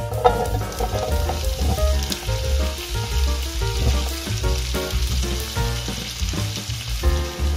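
Oil-coated zucchini sticks dropped into a hot nonstick frying pan, landing with a brief clatter just after the start, then sizzling steadily as they begin to fry. Background music plays underneath.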